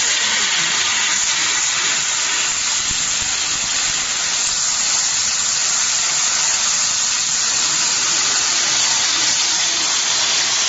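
BOPP packing-tape slitting and rewinding machine running at speed, a steady loud hiss with no breaks or changes.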